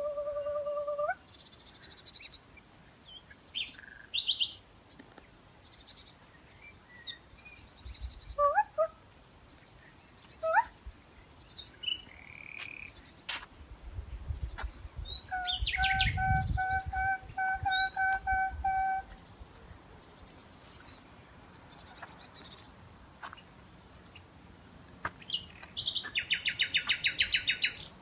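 A common nightingale singing in separate bursts: whistles, falling sweeps and, near the end, a fast trill. A woman's voice alternates with it, holding one note that stops about a second in and later singing a run of short repeated notes.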